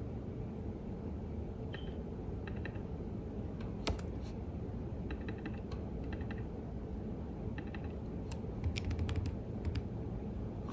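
Computer keyboard typing in short, scattered clusters of keystrokes, with a quicker run of keys near the end, over a steady low background hum.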